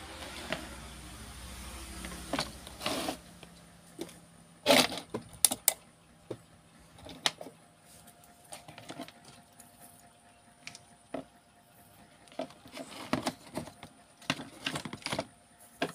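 Handling noise: scattered clicks, knocks and light rattles of wires and parts being moved about on a workbench, in clusters about five seconds in and again near the end. A faint low hum sits under the first few seconds.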